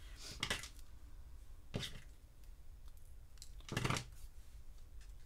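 Three short rustles of small die-cut paper pieces being handled, the last one the loudest.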